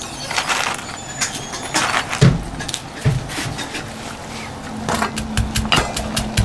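Stone pestle pounding walnut kernels in a stone mortar: scattered knocks at first, then a quick steady pounding of about five strikes a second near the end. A steady low engine-like hum sets in about four seconds in.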